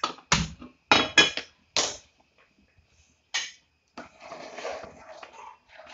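A frying pan knocked and clanked onto the grate of a gas stove, with the clicks of a hand-held gas lighter at the burner: a run of sharp knocks in the first two seconds. A softer, noisier stretch follows about four seconds in.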